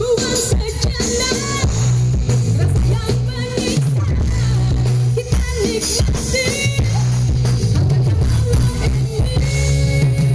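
Music played loud through the SPL Audio parade sound system: heavy, booming bass under a beat with a singing voice.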